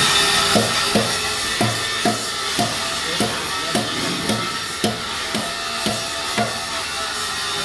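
Music with a steady drum beat, about two beats a second, that stops after about six and a half seconds.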